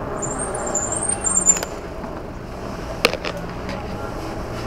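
Road traffic: motor vehicle engines running steadily around a moving bicycle, with a few high chirps in the first second and a half and two sharp clicks, about a second and a half in and about three seconds in.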